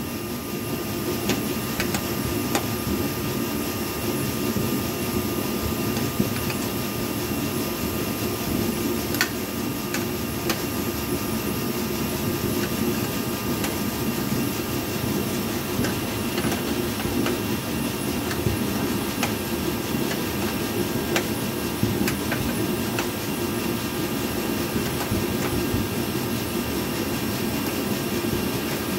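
Steady low mechanical hum, with a few faint metallic clicks from wrenches turning the bolt that draws up a rivnut.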